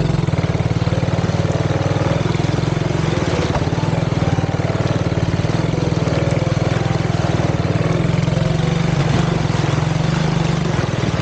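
Small ATV engine running at steady revs as the quad drives through muddy water, with the wheels splashing.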